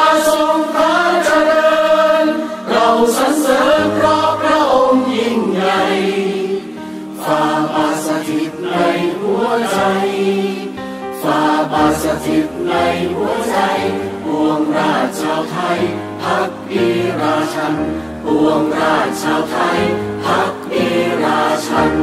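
Slow music with a choir singing long held notes over sustained low bass notes, part of a Thai royal tribute song.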